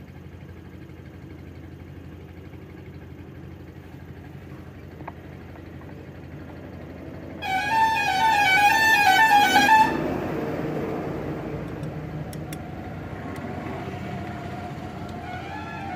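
A vehicle horn with a warbling, melodic tone sounds for about two seconds, starting about seven seconds in. The rumble of a passing vehicle follows and slowly fades, over steady street background noise.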